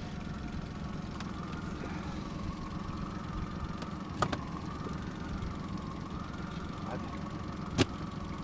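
Outboard motor of an inflatable boat running steadily at low speed, its whine wavering slightly in pitch. Two sharp knocks come about four seconds in and near the end.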